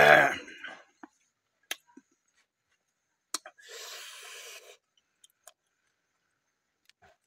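Eating cooked clams by hand: a short loud vocal sound at the very start, then a few sharp clicks of shells knocking against each other, and a wet slurp lasting about a second as meat is sucked from a shell midway through.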